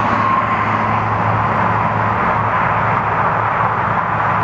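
Steady vehicle noise: a constant engine hum under a broad rush of road traffic, with no sudden sounds.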